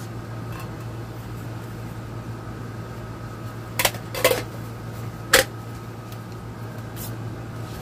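A scoop and mixing cup handled while measuring out powdered wood putty: three short light knocks and clinks, about four seconds in and again a second later, over a steady low hum.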